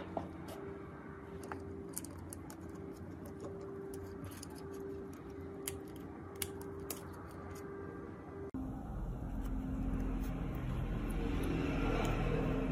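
Light clicks and taps of small plastic and rubber parts being handled as orange rubber button pads are pressed into a white plastic controller shell, over a steady low hum. The hum gets abruptly louder about two-thirds of the way through.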